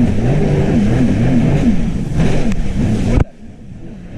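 Jet ski engine running at speed, its pitch wavering up and down; just over three seconds in the sound cuts off suddenly and stays much quieter.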